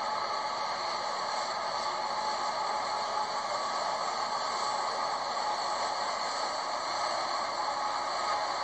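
CSX freight train rolling across a steel truss railroad bridge: a steady, unchanging noise of wheels on rail.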